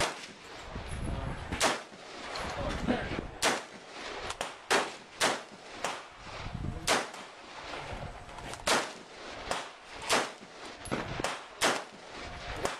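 Gunfire: about a dozen single shots fired at irregular intervals, each a sharp crack. Typical of semi-automatic rifle fire.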